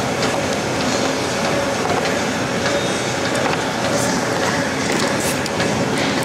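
Stair-stepper cardio machine running: a steady, loud mechanical noise with a faint hum and scattered clicks.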